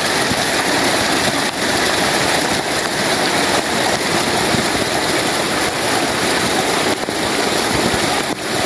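Steady, loud rushing of water, an even hiss with no pitch that holds without change.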